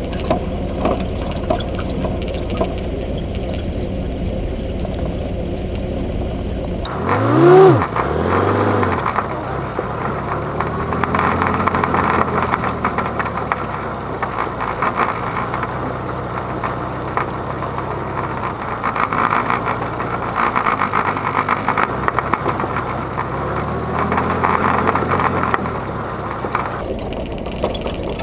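Military Jeep's engine running while being driven, with a sharp rev up and back down about seven seconds in, then running at varying speed.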